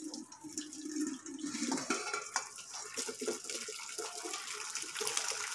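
Water poured slowly through a perforated steel strainer into a steel pot below, splashing on the metal as boiled watermelon-rind cubes tumble onto the mesh. The pour grows a little louder about two seconds in.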